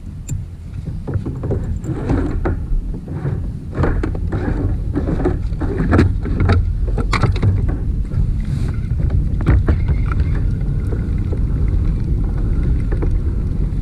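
Kayak out on open water: a steady low rumble of water and wind around the hull, with a run of sharp knocks and clunks from the kayak and its gear in the first half.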